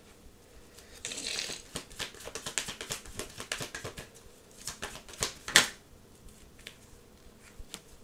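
Tarot cards being shuffled and handled: a quick run of crisp card flicks for about three seconds, then one louder single snap of a card about halfway through.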